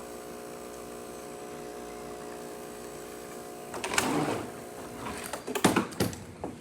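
Breville espresso machine's pump running with a steady hum while the shot pulls. It stops a little under four seconds in, followed by a burst of noise and several sharp clicks and knocks.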